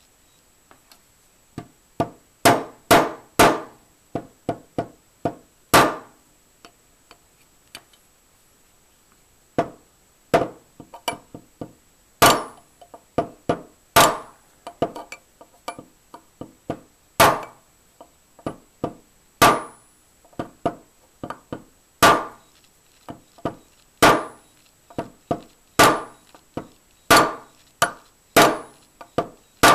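Hammer tapping a pin punch in sharp, irregular strikes, singly and in quick runs of two or three, driving a pin into an AR-15 lower receiver.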